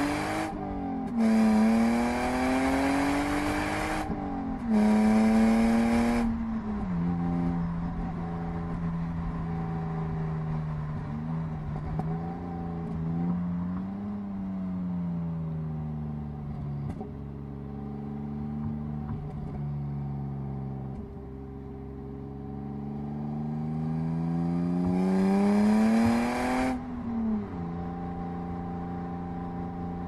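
BMW E36 323i straight-six on its stock exhaust, heard from inside the cabin, accelerating hard: the note climbs and breaks at two quick upshifts in the first six seconds, then settles to a lower part-throttle note that rises and falls. About three quarters through, it climbs again in a long full-throttle pull, then drops back to a steady cruise.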